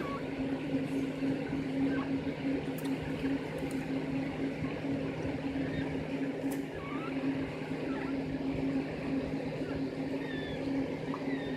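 Newborn puppies giving short, high squeaks now and then, more of them near the end, over a steady low hum.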